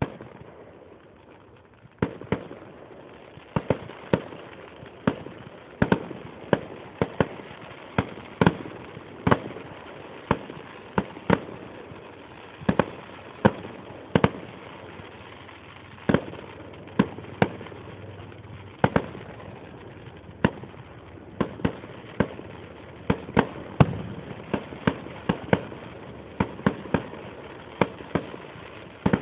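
Aerial fireworks bursting in a rapid string of sharp bangs, one or two a second, with a steady noise between them. The bangs come thick and fast from about two seconds in.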